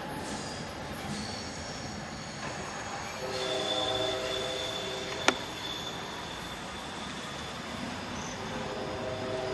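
Train wheels squealing on the rails: a steady, several-toned screech that swells about three seconds in and fades, returning faintly near the end, with one sharp click just after five seconds.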